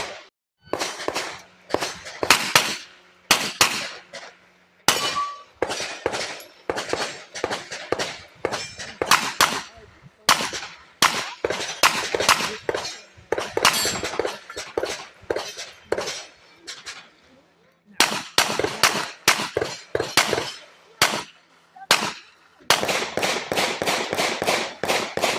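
Gunfire: dozens of sharp shots, some spaced out and others in fast strings of several shots a second, the fastest strings coming near the end.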